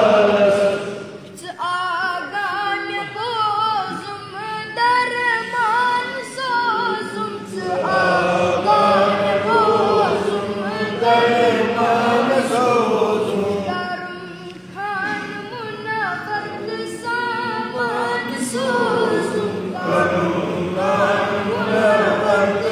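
A young boy singing a hamd, a song in praise of God, in Kashmiri, unaccompanied, with melismatic, wavering vocal lines.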